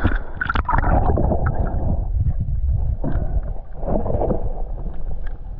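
Splashing as a snorkeller dives under from the surface, then the muffled low rumble of water around a submerged camera, with occasional gurgles.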